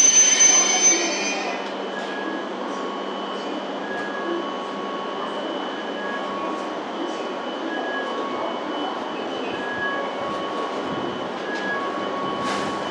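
Hokuriku Shinkansen train at the platform: a high-pitched wheel and brake squeal ends about a second and a half in as the train comes to a stop. Then the standing train's steady hum and high whine continue, with short electronic tones alternating between two notes about once a second.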